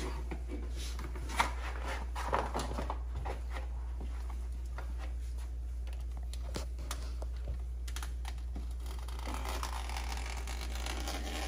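Light clicks, taps and scrapes of a flat hand tool and stiff grasscloth wallpaper being pressed and worked into an inside corner. One sharper click comes about a second and a half in, over a steady low hum.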